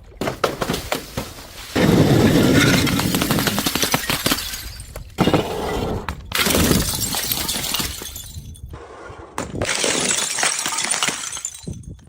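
Glass breaking: several separate stretches of dense cracking and shattering, each starting suddenly and lasting a second or two to about three seconds.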